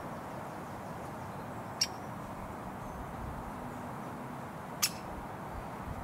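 Two short, sharp woodpecker calls about three seconds apart, over a steady hum of road traffic.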